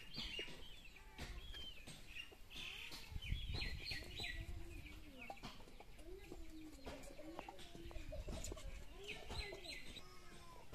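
Hens clucking with small birds chirping high above them, and a few light knocks in between.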